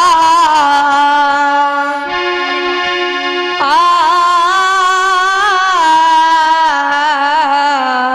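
A girl singing long, ornamented, wavering notes of a Jikdi folk bhajan over a harmonium's sustained chords. Her voice breaks off about two seconds in and comes back a second and a half later, while the harmonium keeps sounding.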